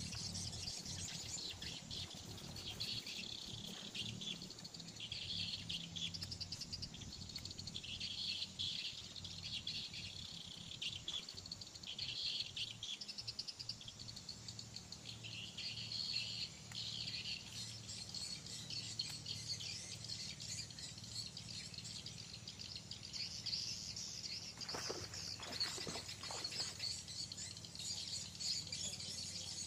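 Birds chirping again and again over a steady high insect buzz, with a faint low hum underneath.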